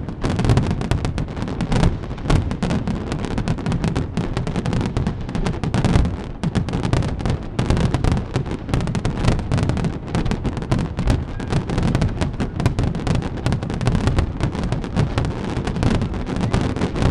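Fireworks display at close range: a continuous barrage of rapid, overlapping shell bursts and crackle over deep booms.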